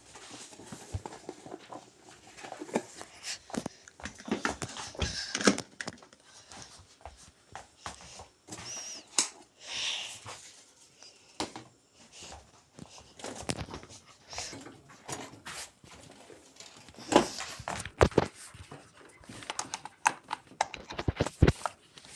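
Irregular clicks and knocks of a household dishwasher being handled and set up, with a brief high squeak or beep about halfway through.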